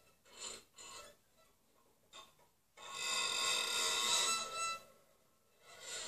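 Violin bow drawn slowly across the high strings of a harp, giving a creaking door-squeak sound. A few short scrapes come first, then a long, loud squeal starts about three seconds in and lasts about two seconds. Another squeal begins near the end.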